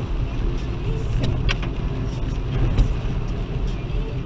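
Steady low road and engine noise inside a Toyota Aygo's cabin as it drives on a wet road in the rain, with a few light clicks about a second and a half in.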